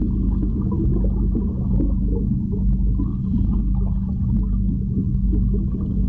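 Underwater pool sound picked up by a submerged camera: a steady, muffled low rumble with a constant hum and scattered faint clicks.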